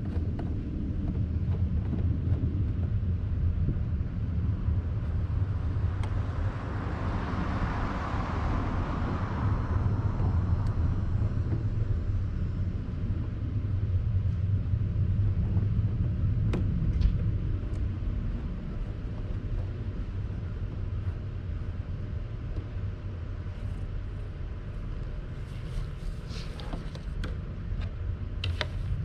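Steady low outdoor rumble, with a swell of rushing noise that rises and fades about a quarter of the way in. Light clicks and taps of parts being handled come near the middle and again near the end.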